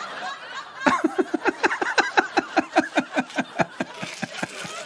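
A person's voice in a fast run of short, falling pulses, about seven a second, lasting around three seconds and starting about a second in.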